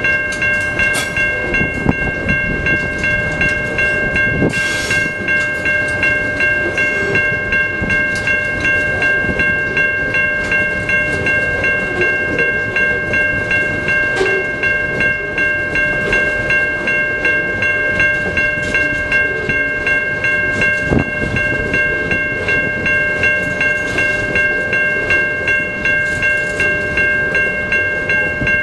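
TasRail freight train's container wagons rolling past with a steady rhythmic clickety-clack of wheels over the rail joints, about one and a half beats a second. Over it, the level-crossing warning bell rings on unbroken, and there is a brief hiss about five seconds in.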